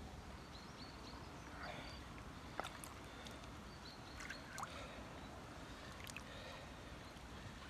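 Faint lake-water splashes and drips as a large common carp is lifted out of a floating retention sling by hand, with a few short small splashes about two and a half, four and a half and six seconds in.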